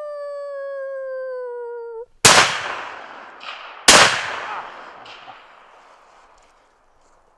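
A long howl falling steadily in pitch, ending about two seconds in, then two rifle shots about a second and a half apart, each followed by echoes rolling away and fading.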